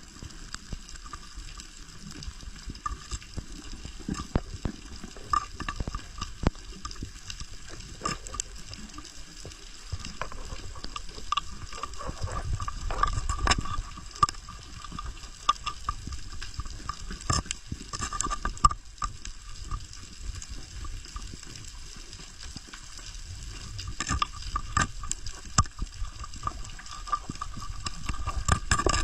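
Underwater water noise with scattered sharp clicks and crackles over a low rumble, and a faint steady whine throughout.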